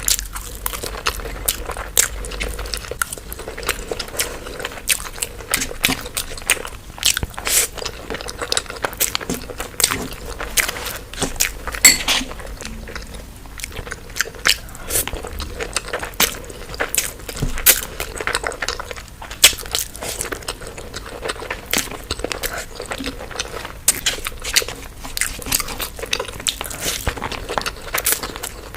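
Crunchy food being bitten and chewed, with many irregular sharp crackling crunches.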